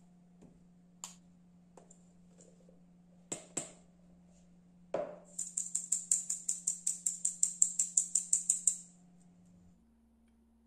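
Flour being sifted through a metal mesh sieve into a glass bowl: a quick run of soft rattling taps, about six a second, as the sieve is shaken, lasting a few seconds. It follows a few scattered clicks and a single knock.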